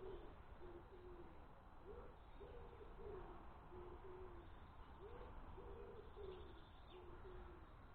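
Pigeon cooing faintly: phrases of several low coos, a short rising note followed by held and falling notes, repeated about every three seconds. A low wind rumble sits beneath.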